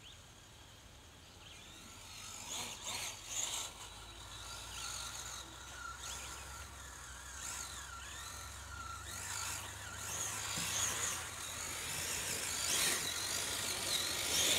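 Electric motor and gear drive of a radio-controlled model truck whining, the pitch rising and falling with the throttle and getting louder as it climbs toward the listener. There are a few knocks about two to three seconds in.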